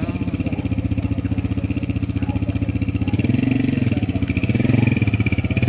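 Motorcycle engine running with a rapid, even putter, rising and falling in pitch twice in the second half as the throttle is opened and eased off by a learner rider.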